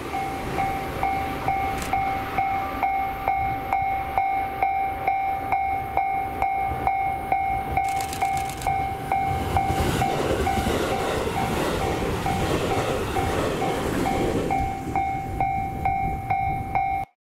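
Railway level crossing alarm ringing, a steady repeating tone about two strokes a second, while a train passes with rumbling wheel noise. The sound cuts off abruptly just before the end.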